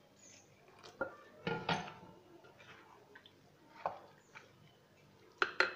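A spoon stirring thick semolina (sooji) batter in a glass bowl, knocking and scraping against the glass. Scattered sharp clinks, with two close together near the end.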